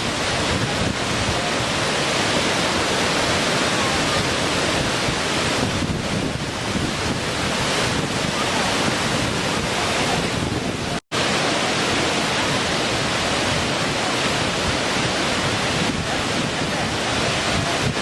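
Small waterfall: water falling and splashing in a steady, dense rush. It cuts out for a split second about eleven seconds in.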